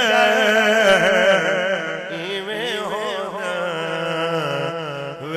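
A man chanting a couplet in long, drawn-out notes whose pitch wavers and turns, with no words broken off. The first two seconds are loudest, then the voice eases down.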